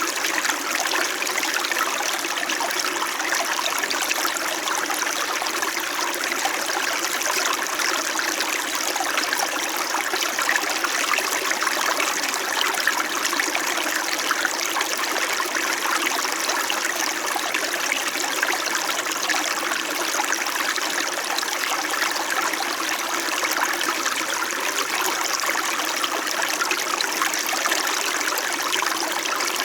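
Small stream flowing steadily over rocks, a continuous babble and trickle of running water.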